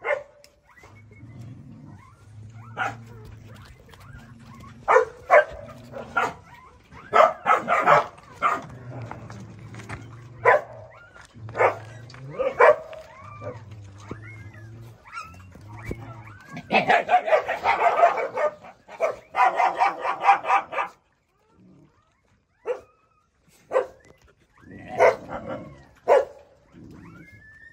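Young puppy whining and yelping in short, high cries, with a long run of closely packed cries about 17 to 21 seconds in.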